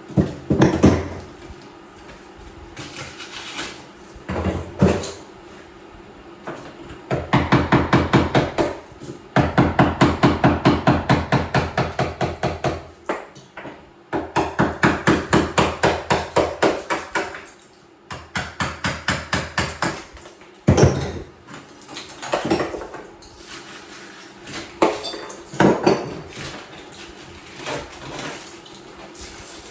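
Hammer striking in quick, even runs of about five blows a second, with single knocks in between, chipping tile out of a shower wall.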